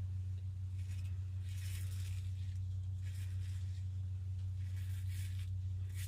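Vintage GEM push-button single-edge razor scraping through lathered stubble in a few short strokes, over a steady low hum.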